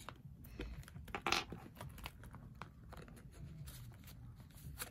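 A plastic card being slid into a soft leather wallet's card slot: scattered light scrapes, rustles and small clicks, with one louder scrape about a second in.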